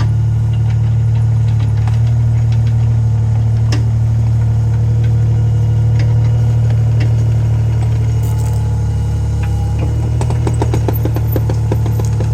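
Mini excavator's diesel engine running steadily with a low hum, with scattered clicks and clanks; about ten seconds in a fast rattle starts.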